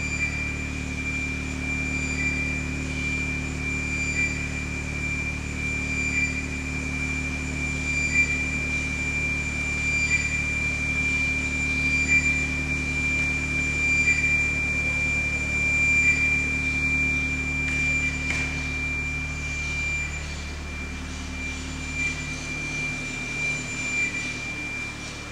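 Electronic sound-art drone played over loudspeakers: a steady high sine tone over a low layered hum, with a soft beep repeating about every two seconds. The lowest part of the hum thins out near the end.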